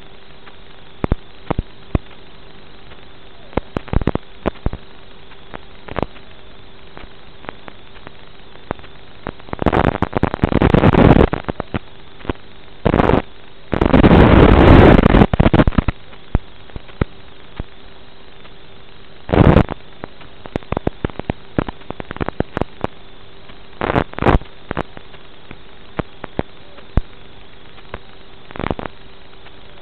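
Analog FPV video receiver static recorded with the goggle DVR: a steady hiss with a faint hum, broken by scattered crackles and several loud bursts of crackling noise, the longest and loudest around halfway through. The bursts are the sign of the analog video signal breaking up.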